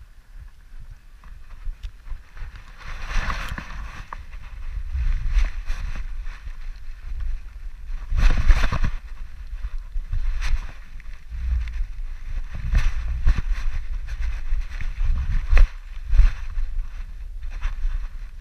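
Low rumbling wind and handling noise on a camera strapped to a dog's back, buffeted as the dog moves, with louder scuffs and bumps about three seconds in and again around eight seconds in.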